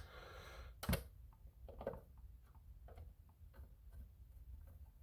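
Small parts being handled at a bench: one sharp click about a second in, then faint, irregular light ticks and clicks.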